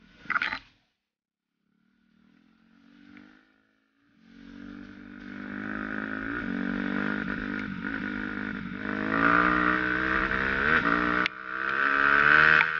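Suzuki RM-Z250 dirt bike's four-stroke single-cylinder engine: after a short burst and a few near-quiet seconds, it comes in at about four seconds and accelerates along the trail, its pitch climbing and dipping several times with the throttle and gear changes, loudest near the end.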